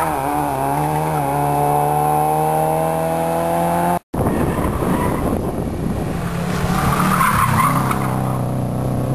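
Fiat Cinquecento rally car accelerating away, its engine note rising steadily in pitch for about four seconds. After a brief dropout, a Subaru Impreza rally car with a flat-four engine comes through a bend, with engine and tyre noise that peaks a couple of seconds before the end.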